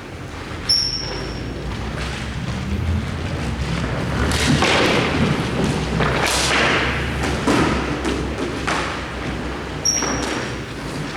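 Hockey shots during play: a series of separate thuds and knocks from stick and puck strikes. Two short, high metallic pings sound among them, one about a second in and one near the end.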